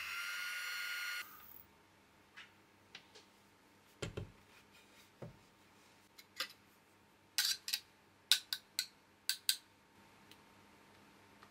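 Electric hand mixer whirring at low speed in stiff meringue, the final low-speed stage of whipping egg whites, and stopping abruptly about a second in. Scattered light clicks and knocks follow, with a quick run of sharper clicks a little past the middle.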